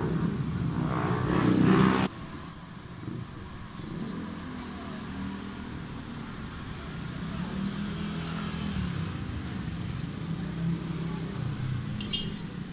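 Street traffic: a car's engine swells loud as it passes close, then cuts off abruptly about two seconds in, leaving quieter traffic in which motorcycle engines come and go.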